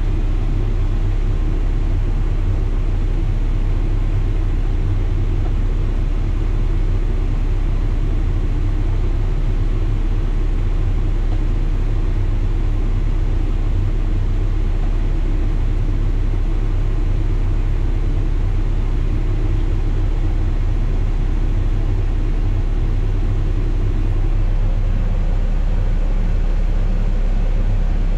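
Caterpillar excavator's diesel engine running steadily at idle, a low, even drone heard from the operator's cab, getting slightly louder in the last few seconds.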